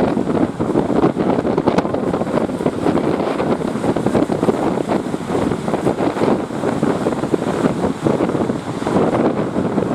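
Strong wind buffeting the microphone, a loud and constantly flickering noise with no steady engine tone showing through.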